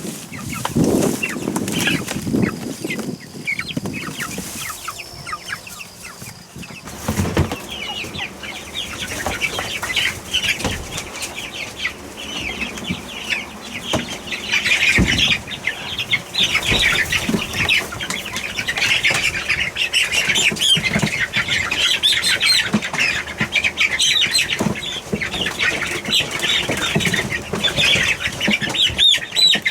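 A crowd of young chicks peeping continuously in many overlapping high calls, growing denser and louder about a quarter of the way in, with some rustling and a few knocks.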